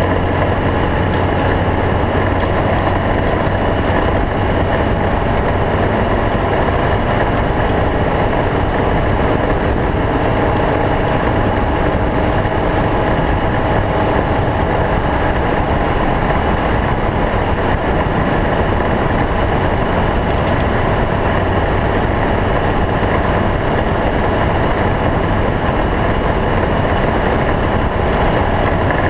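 Stock Volkswagen Beetle desert race car driving flat out, its air-cooled flat-four engine running steadily under load, mixed with loud, steady rumble and rattle from the car on rough dirt.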